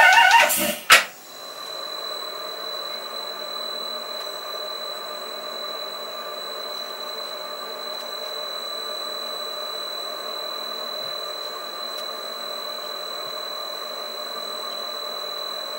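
A short loud clatter in the first second. Then a CNC lathe's spindle runs steadily, turning a small stainless steel shaft adapter in its chuck, with an even hum and a steady high whine.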